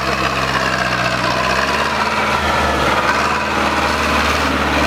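Zetor tractor's diesel engine running steadily under load as it drives through deep mud, its note shifting slightly about two seconds in.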